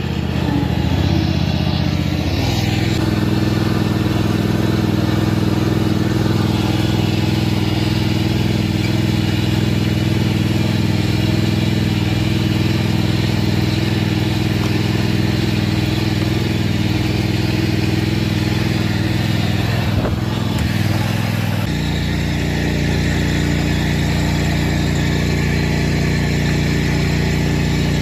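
Simplicity riding lawn tractor's engine running steadily under load as it pulls a weighted disc harrow through soil. Its note changes abruptly about 22 seconds in.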